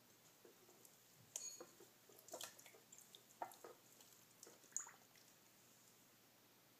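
A handful of faint wet squishes, drips and light taps as fingers press a soggy old microfiber cloth-diaper insert down into water in a glass measuring cup.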